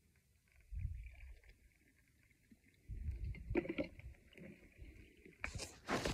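Quiet handling sounds as coffee is poured from a glass carafe into a ceramic mug and the carafe is set back onto the drip coffee maker, with a few low rumbles and a louder rustle and knock near the end as the phone is moved.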